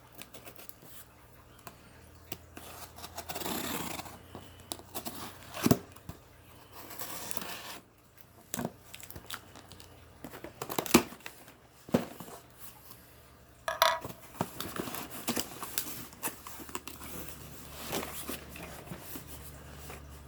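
A cardboard box being opened by hand: tearing, scraping and rustling of cardboard and packing, with a few sharp knocks as the contents are handled.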